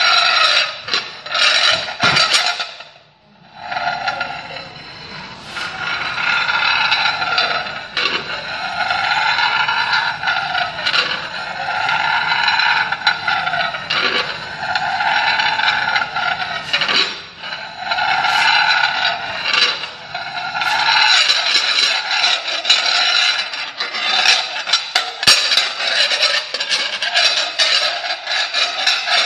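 Metal trays scraped and rubbed against each other as a percussion accompaniment: a repeated scrape that rises and falls in pitch about every two seconds, turning into denser rattling scrapes with sharp clicks in the last third.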